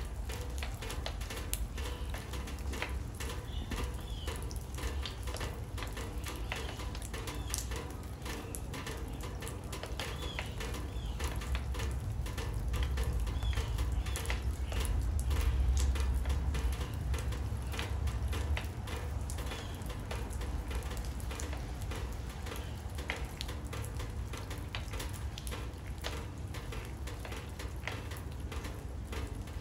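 Steady rain falling on a water-filled birdbath and wet paving: a dense, irregular patter of drops splashing into the water. A low rumble swells for a few seconds in the middle.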